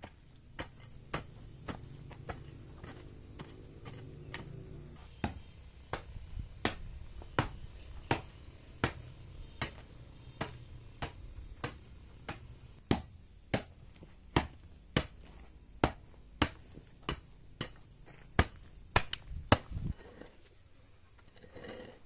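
A hoe chopping into stony soil in a steady rhythm while a ditch is dug, a sharp strike roughly every two-thirds of a second. The strikes stop about two seconds before the end, the last few the loudest.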